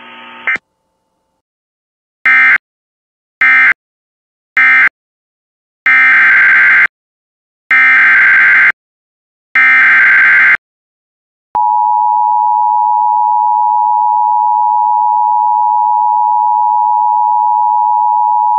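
Emergency Alert System signalling: three short bursts of digital data tones closing one alert, then three longer bursts of about a second each opening the next. About 11 seconds in, the steady two-tone EAS attention signal starts, marking a new warning about to be read.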